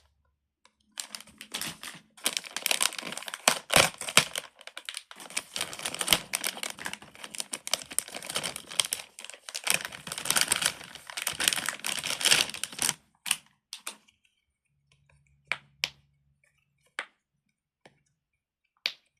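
Silicone pop-it fidget toy being pressed, a quick run of small popping clicks for about twelve seconds, then a few single pops spaced out near the end.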